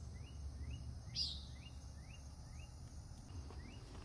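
Outdoor evening wildlife: a run of short rising chirps repeated evenly about three times a second, with one louder, higher call sweeping downward about a second in, over a low rumble of wind.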